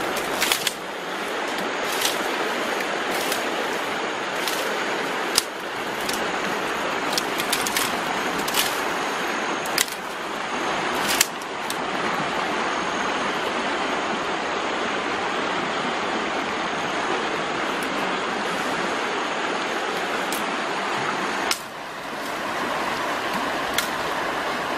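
Steady rush of a small stream running over rocks, with scattered sharp clicks and snaps in the first half.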